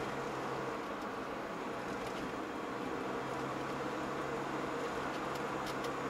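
Steady road and engine noise heard from inside a moving car's cabin, with a low steady hum and a few faint ticks near the end.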